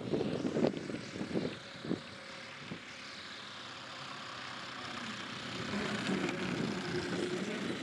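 Radio-controlled RV-4 model aeroplane's engine and propeller at low throttle as it lands on grass and rolls out. Uneven gusty sound in the first two seconds, then a steady hum that grows a little louder after about five seconds.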